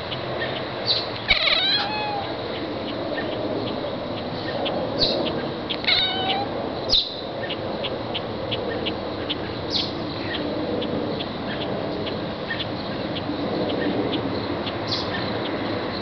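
Domestic cat giving short meows at the window, in two bouts about a second and a half in and about six seconds in. A few short high chirps and a rapid, even high ticking sound faintly outside.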